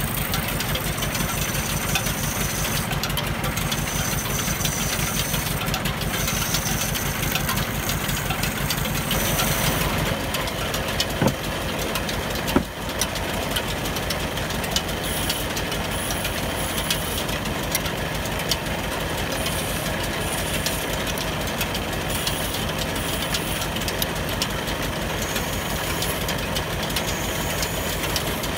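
Motor-driven wood lathe running steadily, with a fast, even machine rhythm, while a hand chisel cuts into the spinning wooden rolling-pin blank. The sound shifts about halfway through, with two sharp clicks.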